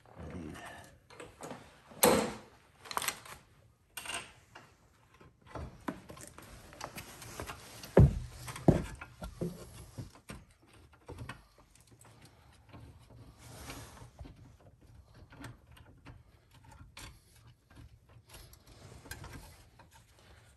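Scattered clicks, knocks and rubbing from hand work on a car's rear brake assembly as parts and tools are handled. The sharpest knock comes about eight seconds in.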